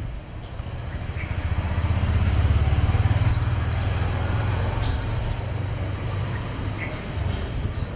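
Low outdoor rumble that swells about two seconds in and eases off after a few seconds, with a few faint short chirps on top.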